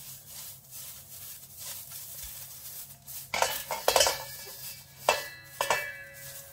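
Dried herbs rubbed by hand against a stainless-steel mesh sieve, a dry scratchy rustle. From about halfway through, the metal sieve clanks against the bowl several times and rings briefly.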